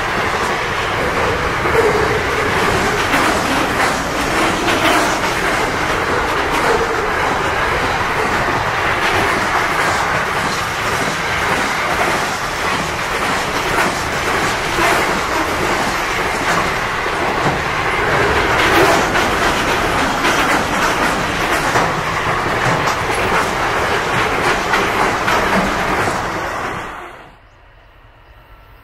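Container wagons of a freight train rolling past close by: a steady loud rumble and clatter of steel wheels on rail, with repeated clicks of the wheels over rail joints. The noise drops away suddenly about 27 seconds in, leaving a much quieter background.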